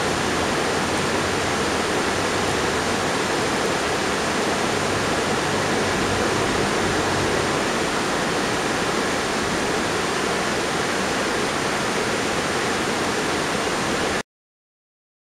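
River water rushing steadily over a rocky bed, a constant even hiss that cuts off suddenly near the end.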